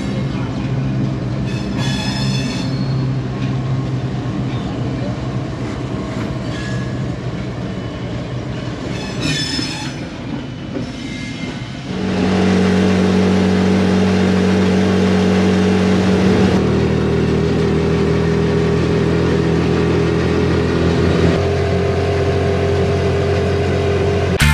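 A train rolling through with a heavy rumble and a few brief high squeals. About halfway through, a diesel locomotive's engine takes over, running steadily with a low hum, its note changing slightly a couple of times.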